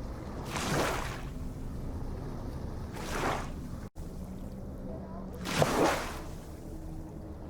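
Ocean waves washing onto a beach, a wash swelling and fading about every two and a half seconds over a steady low rumble of surf. The sound drops out for an instant near the middle.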